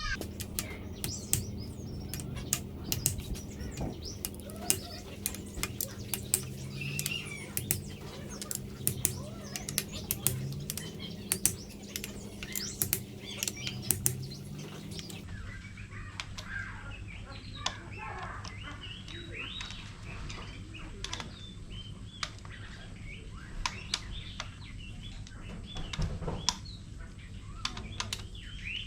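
Irregular sharp clicks and clinks of hand tools and metal parts, over a steady low hum, with birds chirping in the background in the second half.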